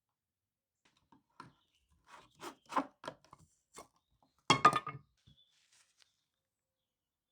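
A series of short, light knocks and clicks, with a louder cluster of knocks about four and a half seconds in.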